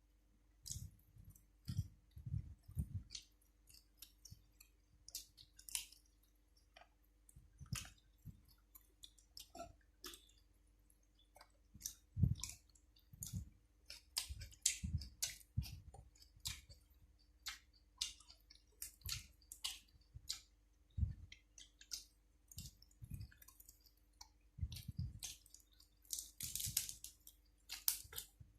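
Eating sounds: chewing and crunching of grilled pork-cheek salad with raw vegetables, with many irregular wet clicks and smacks from the mouth.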